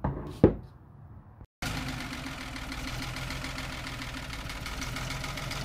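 Two knocks of the metal valve body being handled on a wooden table, the second loud and sharp. After a short break, a steady engine sound idles evenly.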